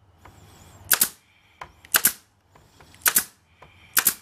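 P625-A pneumatic pin nailer firing four times, about a second apart, each shot a sharp snap driving a pin into the wooden jig blocks.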